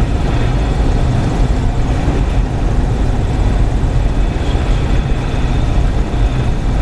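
A light single-engine propeller plane's engine and propeller running steadily, heard from inside the cockpit, as the plane lines up and rolls down the runway at the start of its takeoff.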